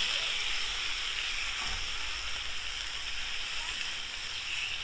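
Small pieces of chicken sizzling steadily in hot oil in a cast iron skillet over a campfire.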